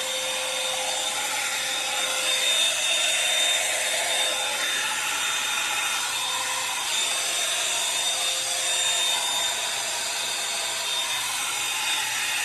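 Revlon One-Step hot-air dryer brush running steadily, a whir of blown air with a high, steady motor whine.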